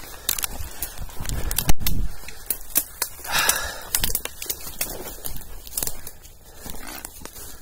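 Footsteps through dry brush and leaf litter, with twigs snapping and branches scraping along clothing in an irregular run of clicks and rustles. A loud knock comes just under two seconds in, and a longer swishing rustle a little past three seconds.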